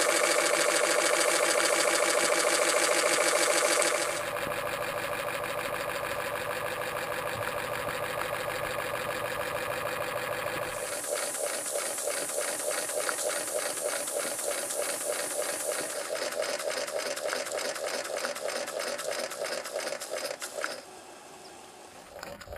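Peake No 6 'Hypnocycle' model steam engine running fast with a rapid, even mechanical clatter. The sound drops low near the end.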